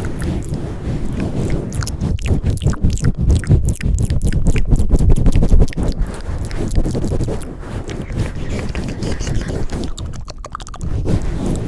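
Close-up ASMR trigger sounds right on the microphone: rapid crackling and rubbing over a heavy low rumble, louder in the middle stretch.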